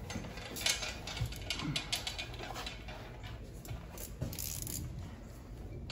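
Scattered light clicks, taps and small knocks of a plastic motorcycle lower fairing panel and its small fittings being handled and pushed into place.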